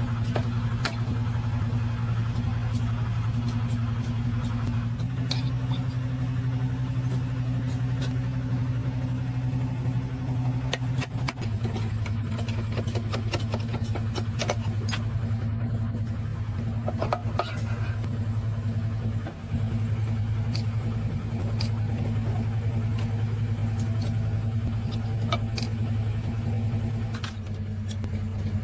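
An engine running steadily with a low hum that shifts pitch slightly a few times, under scattered sharp taps and clinks of hand tools at work, thickest in the middle.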